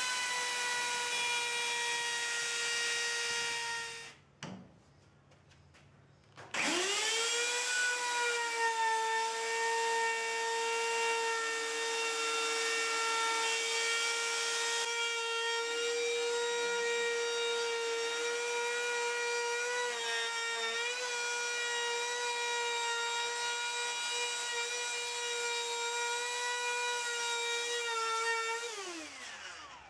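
Handheld electric router running at a steady high-pitched whine as its bearing-guided bit cuts the edge profile along a wooden table leg. It switches off about four seconds in, is quiet for about two seconds, spins back up with a rising pitch, runs on steadily, and winds down with a falling pitch near the end.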